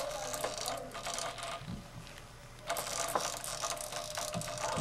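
Atlas 618 lathe spindle being turned slowly by hand, its gears and drive belt giving a light, irregular clicking and rattling in two spells, with a short pause between them.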